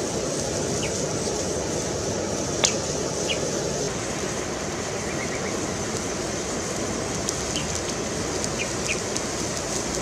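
Water bubbling in a wok with a whole duck being scalded in it over a wood fire, a steady bubbling with a few sharp crackles from the fire, one louder pop a little under three seconds in.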